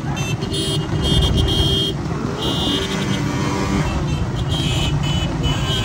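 Several small motorcycles running alongside at low speed, their engines making a dense, steady rumble. Short high-pitched beeps cut in and out several times.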